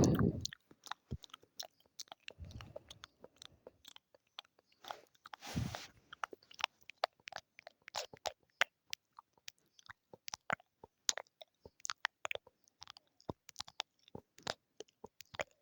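Close-miked ASMR mouth sounds: a dense, irregular run of short wet clicks and smacks from the lips and tongue, with two brief, fuller sounds a few seconds in.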